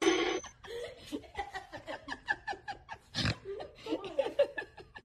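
A woman laughing in a run of short breathy bursts.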